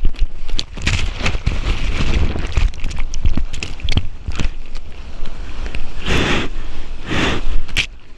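Seawater splashing and rushing in the surf, with many sharp irregular splashes and several longer rushes of white water near the end, and wind buffeting the microphone.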